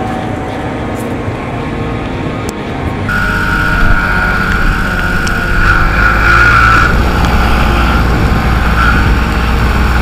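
About three seconds of muffled road noise from inside a car following behind, then a farm tractor's engine running steadily as it drives along a wet road.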